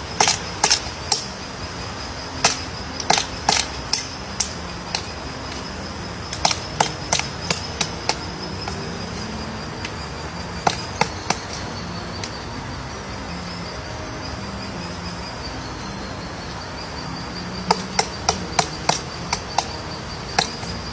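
Woodpecker chiselling out its nest hole: sharp taps of bill on wood in bouts of several quick strikes, broken by pauses of a few seconds. A steady high-pitched whine runs behind it.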